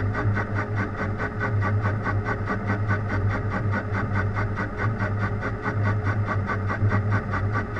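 Metalworking machine tool running while cutting the part: a steady motor hum with a regular pulsing of about six beats a second.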